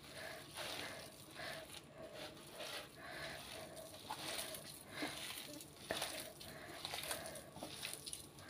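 A hand squeezing and mixing shredded boiled chicken in a ceramic dish: soft, irregular rustling with a few light clicks midway.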